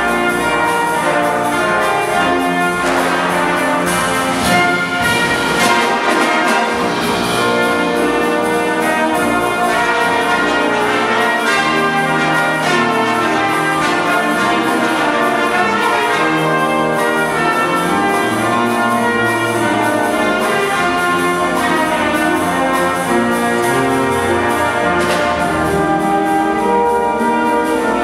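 Brass ensemble of trumpets, French horns, trombones and tuba playing together in chords of held notes, at a steady loudness.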